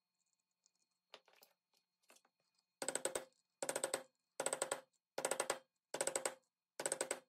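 Mallet striking a metal setting tool to set rivets in a leather strap: six quick runs of rapid strikes, evenly spaced, with a light ringing tone. Faint handling clicks come before the first run.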